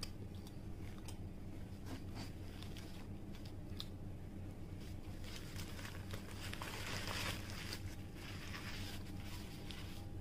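Quiet chewing of a mouthful of burger with small mouth clicks. Then, from about five seconds in, the paper burger wrapper is crumpled and rustled in the hands for a few seconds, over a steady low hum.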